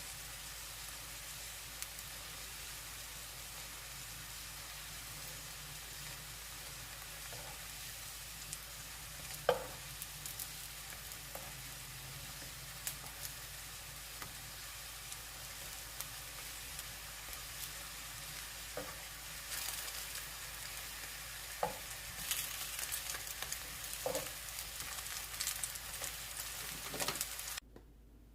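Zucchini pancakes (aehobak-jeon) sizzling in oil in a frying pan, with scattered light clicks and knocks. The sizzle cuts off sharply shortly before the end.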